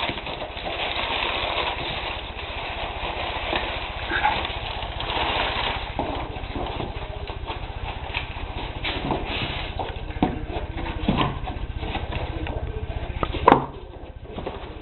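Paper and foam packing peanuts rustling and crackling as hands rummage through a cardboard box, over a steady low hum, with one sharp knock near the end.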